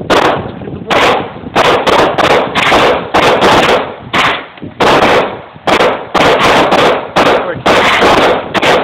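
Gunfire at a shooting range: a rapid, irregular string of loud gunshots, often several within a second and overlapping.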